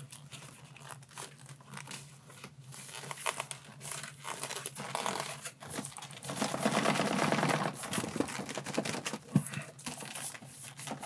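Cardboard box and paper packaging being handled and opened: rustling and scraping with scattered light knocks and clicks, and a longer, louder stretch of rustling and scraping about six to eight seconds in.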